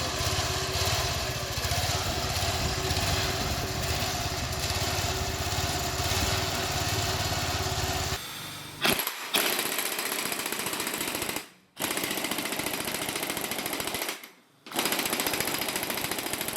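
A motor running steadily with a fast, even throb for about eight seconds, then a changed, thinner running sound, broken off twice briefly in the second half.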